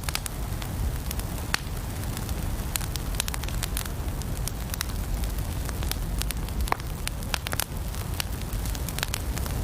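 Wood fire crackling in a fireplace: a steady low rumble with many sharp, irregular pops and snaps.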